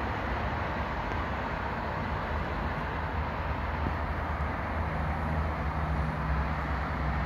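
Motorway traffic heard from a distance: a steady rumble and hiss of passing vehicles, with a low engine drone joining about five seconds in.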